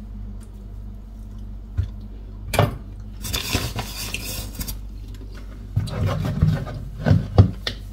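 Kitchen mixing bowl and utensils being handled on a counter over a steady low hum: a couple of sharp clicks, a scraping rustle lasting about a second and a half in the middle, then a run of clattering knocks near the end, the loudest just before it ends.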